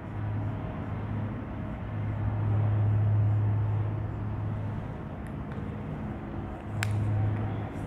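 A low droning hum that swells and fades over a background hiss, with one sharp click near the end.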